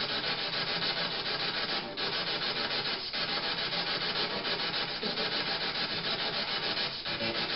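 Steady rushing hiss like static, broken by three brief dropouts: about two seconds in, three seconds in, and near the end.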